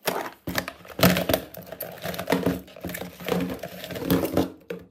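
Old mobile phones tipped out of a plastic bucket onto a hard tabletop, clattering and knocking against each other and the bucket in a quick irregular run, loudest about a second in.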